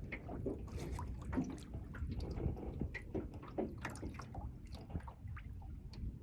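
Small waves lapping and slapping irregularly against a boat hull, with a steady low rumble underneath.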